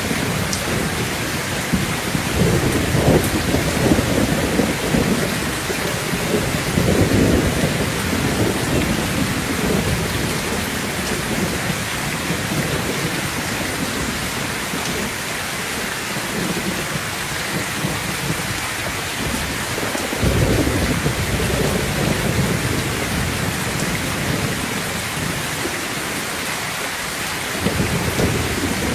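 Heavy rain pouring steadily, with low rolling thunder rumbling up several times.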